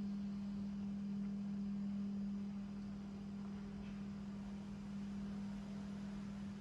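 A steady low hum at one unchanging pitch, over faint background noise.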